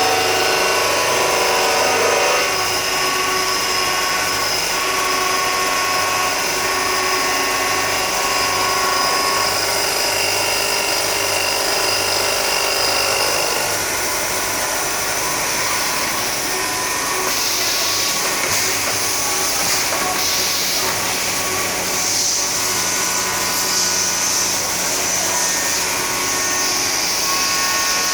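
CNC vertical machining center running and machining metal profile: several steady whining tones over a low hum that pulses about once a second. A higher hiss joins about two-thirds of the way in.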